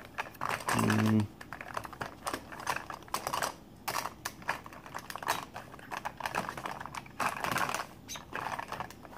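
Rapid, uneven clicking and clattering of small makeup items and brushes being rummaged through in a search for a makeup brush. About a second in, a man gives a short, low hum.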